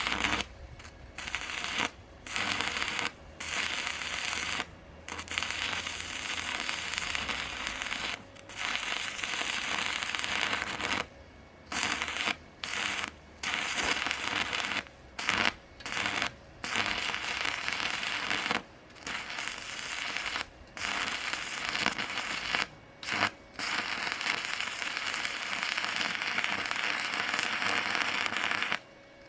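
Stick-welding arc from a Parkside PISG 100 A1 inverter welder, crackling steadily as the electrode burns onto steel. The arc drops out for a moment and restrikes more than a dozen times.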